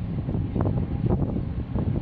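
Wind buffeting the microphone, a gusty low rumble that rises and falls irregularly, with a faint steady hum beneath it.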